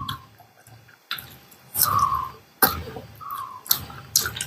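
Close-up eating sounds from hand-fed mouthfuls: chewing and lip-smacking in about five short bursts, several with a brief falling squeak.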